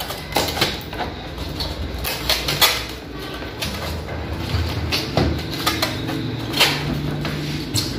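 Irregular clicks and knocks of a freezer's plastic evaporator cover and its clips being worked loose by hand, over a low steady hum.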